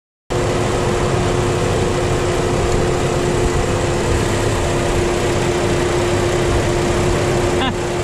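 The 1.4L turbocharged Ecotec four-cylinder of a Buick Encore idling steadily at about 1,000 RPM with a steady tone. It cuts in abruptly just after the start. The engine is running lean with misfire codes, which the mechanic puts down to an air/fuel fault, not an ignition misfire.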